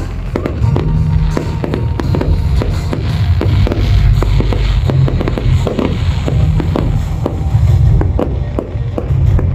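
Fireworks popping and crackling in quick, irregular bursts, over loud show music with a heavy bass.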